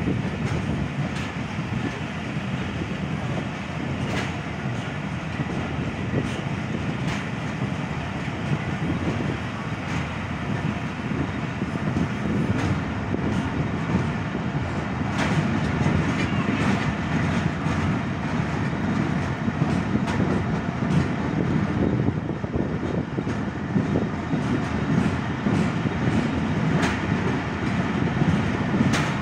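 Passenger train coaches rolling steadily along the track, heard from a coach window: a constant rumble of wheels on rail with scattered clicks over rail joints, getting a little louder about halfway through.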